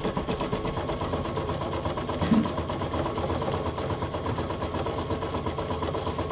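Brother Innov-is NS1250E embroidery machine running, its needle stitching rapidly and evenly through the hooped fabric on the final outline that attaches the back liner. A short, louder knock comes about two seconds in.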